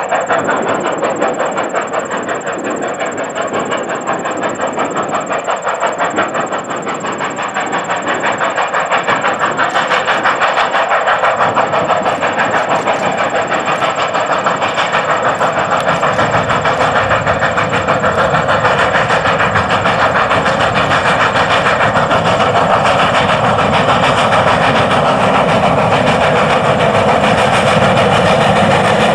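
Strasburg Rail Road No. 90, a 2-10-0 decapod steam locomotive, working a freight train with rapid, even exhaust beats. It grows louder and fuller as it draws near.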